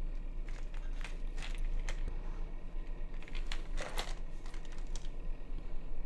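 Hands handling keyboard parts and their packaging: scattered small clicks and crinkling, with a brief denser cluster of crinkles about four seconds in.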